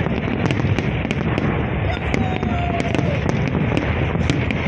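Fireworks display: a continuous dense rumble of bursts with many sharp crackles and pops layered over it.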